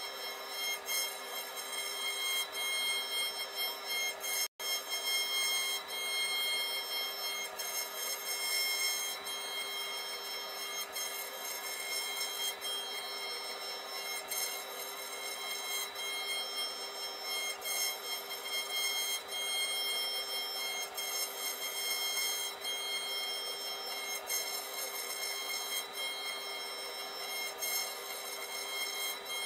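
CNC router spindle running with a steady high whine while its tapered carving bit cuts a relief into a wooden board, with cutting noise underneath. The sound cuts out for an instant about four and a half seconds in.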